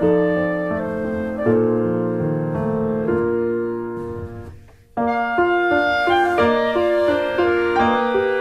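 Instrumental background music led by piano. It fades almost away about four and a half seconds in, then starts again with a quicker run of notes.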